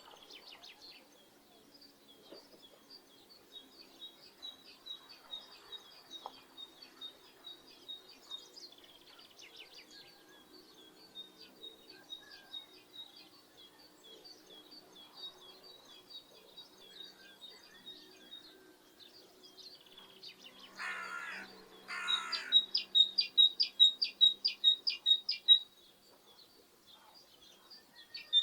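Small songbirds chirping, a continual string of high chirps. About twenty seconds in come two short harsh calls, then a loud run of rapid chirps, about four a second, for a few seconds.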